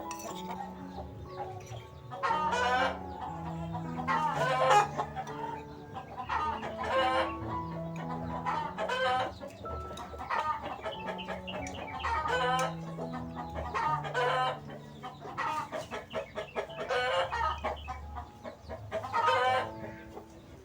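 Chickens clucking in repeated short calls every second or two, over background music with held low notes.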